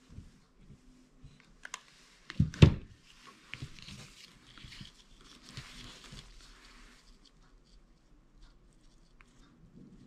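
A hot glue gun set down on a table with a knock about two and a half seconds in, then soft rustling and light clicks as fingers press and handle a ribbon.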